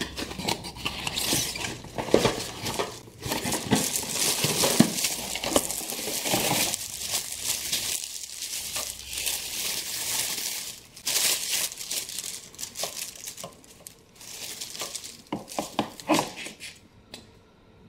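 Cardboard box and plastic wrapping rustling and crinkling as a fluorescent batten light fitting is unpacked, with scattered small knocks and scrapes.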